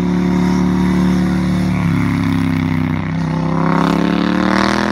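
Triumph Thruxton 1200 R's parallel-twin engine, with the 270-degree firing that gives it a V-twin-like beat, running at steady revs, then rising in pitch over the last two seconds as it is revved up.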